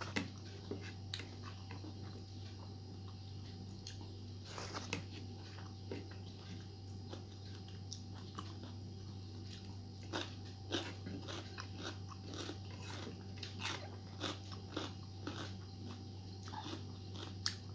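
Close-miked eating by hand: chewing, mouth clicks and smacks as rice and curry are eaten from the fingers, with crisp bites of a raw cucumber slice. The clicks come thicker in the second half, over a steady low hum.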